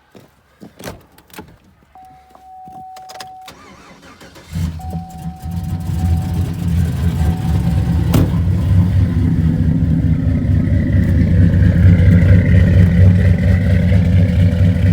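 GMC pickup's V8, fitted with a Brian Tooley Stage 4 truck cam, cranking and catching about four and a half seconds in, then idling and growing louder. Before the start there are a few clicks and a steady electronic chime tone from the truck.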